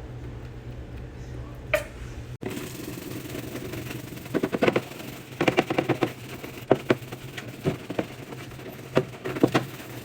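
Short bouts of quick scrubbing strokes while a fridge is being cleaned, after a steady low hum with a single click that cuts off abruptly about two seconds in.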